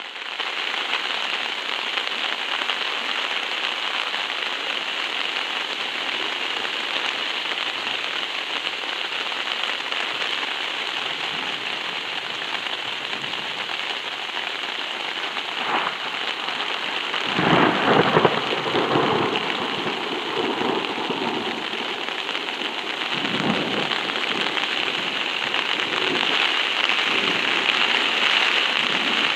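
Heavy rain falling steadily on a DD Hammocks camping tarp overhead. A little past halfway a clap of thunder breaks in and rumbles on for a few seconds, and a fainter rumble follows a few seconds later.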